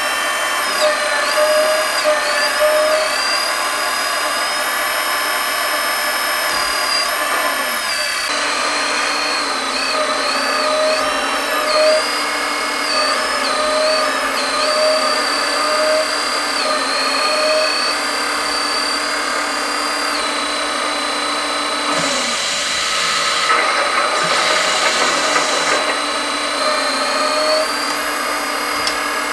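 Kabolite K350 RC hydraulic excavator working: the electric hydraulic pump whines steadily, its pitch shifting several times as the boom, arm and slew are operated. The sound module's simulated excavator engine runs beneath it, with a rougher, noisier stretch in the later part.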